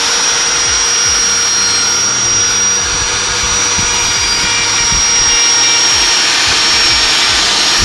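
A stone carver's handheld power tool running at full speed, a steady high-pitched motor whine over a dense hiss.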